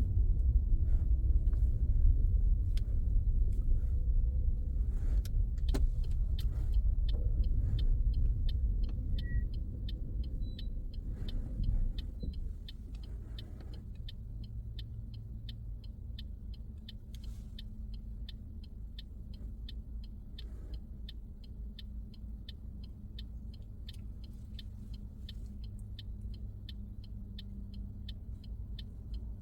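Car interior: road and engine rumble that drops about twelve seconds in to a quieter steady engine hum, with the turn indicator ticking evenly throughout the second part, set for a right turn.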